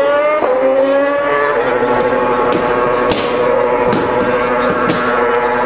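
Formula 1 car engine running at high revs, its pitch rising over the first second and then holding nearly steady, with a few sharp clicks partway through.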